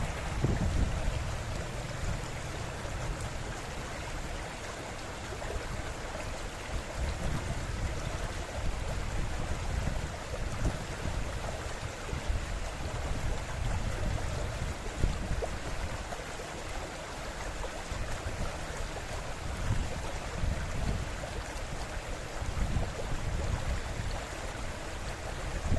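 River water flowing steadily, with low rumbles coming and going.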